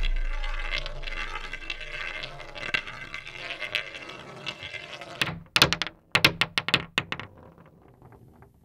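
Roulette ball whirring around a spinning wheel, then clattering over the frets in a quick run of sharp clicks about five seconds in, and ticking more and more faintly as it settles into a pocket.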